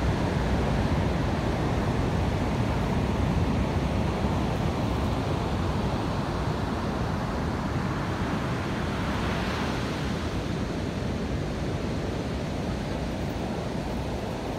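Ocean surf breaking and washing up a sandy beach: a continuous rush of waves, with one wash swelling louder a little over halfway through.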